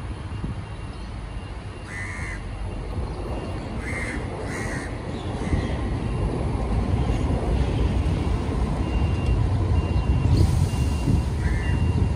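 Indian house crows cawing: single short harsh caws about two seconds in, a quick pair around four seconds, another soon after and one more near the end. Beneath them a low vehicle rumble grows louder through the second half.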